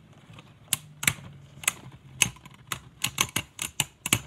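Two Beyblade Burst spinning tops, Geist Fafnir against Kerbeus, clashing in a plastic stadium. They make sharp clicks at irregular spacing, a few a second, coming closer together near the end.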